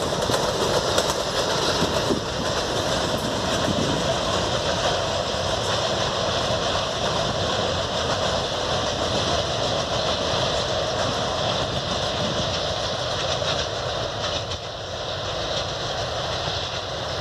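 Loaded freight train's hopper wagons rolling past on the rails: a steady rumbling, rattling noise that eases slightly near the end.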